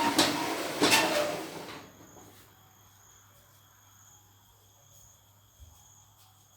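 A loud rustling clatter with two sharp clicks in the first two seconds. Then insects trill steadily and faintly in the background.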